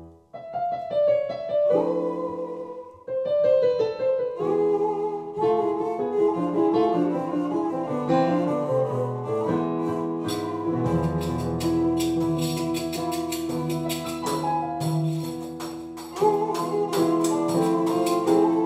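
Instrumental trio of classical Turkish kemençe, digital piano and def frame drum. After a brief dip at the start, the piano and bowed kemençe play the melody, and from about ten seconds in, quick sharp drum hits join with a low sustained bass line underneath.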